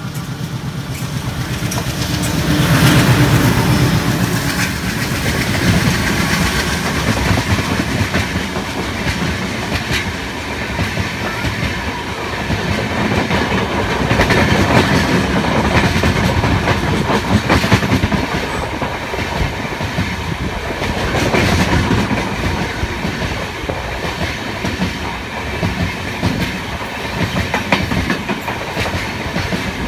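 An oncoming train passing close on the next track. The WDG3A diesel locomotive's ALCO 251 engine goes by about two to four seconds in, the loudest part. A long run of coaches follows with a steady clickety-clack of wheels over rail joints and rumbling running gear.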